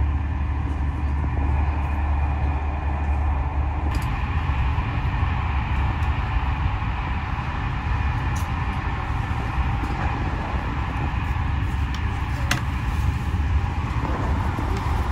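Passenger train running: a steady low rumble that goes on without a break.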